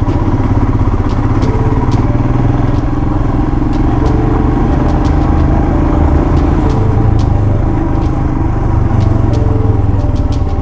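Motorcycle engine running steadily while the bike is ridden over a rough yard road, with a few scattered light clicks.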